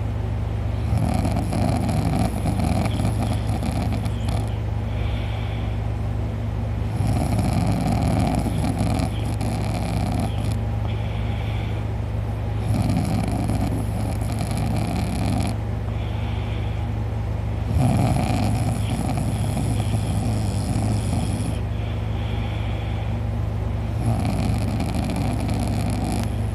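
A man snoring loudly and rhythmically in deep sleep, a rough snore about every five to six seconds, five in all. A steady low hum runs underneath.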